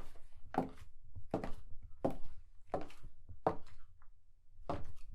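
High-heeled shoes walking at an even pace, about seven sharp heel strikes, with a slightly longer gap between steps near the four-second mark.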